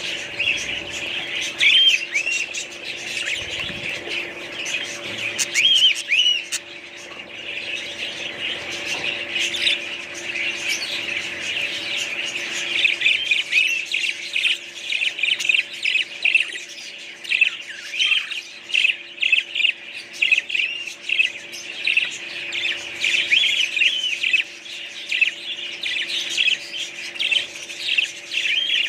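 A group of small pet birds chirping and squawking continuously, a dense chatter of quick high chirps that gets busier in the second half.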